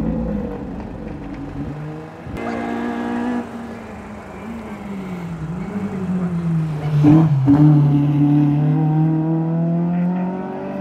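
Rally car engines at full throttle on a closed stage, the pitch climbing and then dropping sharply with each gear change. Loudest around seven seconds in as a car passes close.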